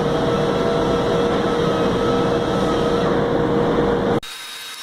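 Steady machine hum with a constant tone, which cuts off suddenly about four seconds in, leaving a much quieter background with a thin high whine.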